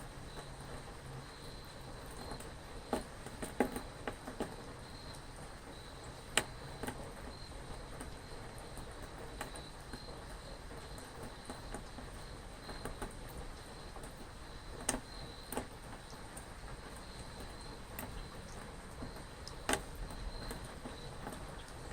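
Steady rain with a few sharp drops or drips landing: a cluster a few seconds in, one near the middle and one near the end. A faint, high, steady chirring runs underneath.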